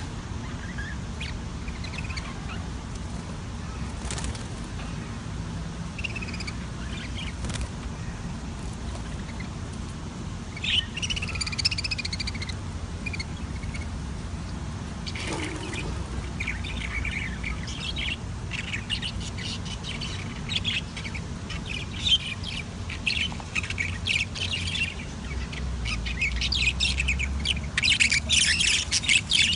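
Budgerigars chirping and warbling: scattered calls at first, turning into busy chattering that is loudest near the end, over a steady low rumble.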